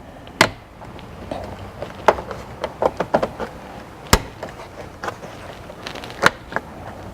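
Plastic interior trim being fitted back into place in a car: a series of irregular clicks and knocks, the sharpest about half a second, two, four and six seconds in.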